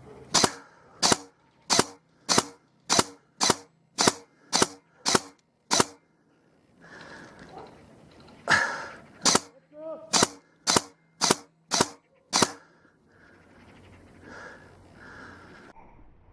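Airsoft gun fired in single shots, a sharp crack roughly every half second to second: about ten shots, a pause of a few seconds, then six more. Faint voices can be heard between the strings of shots.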